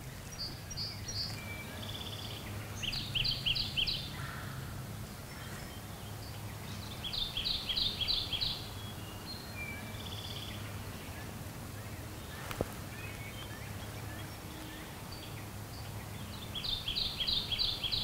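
Songbirds singing: one bird repeats a quick phrase of about five doubled high notes three times, with other birds calling softly in between, over a steady low background hum. A single light click about two-thirds of the way through.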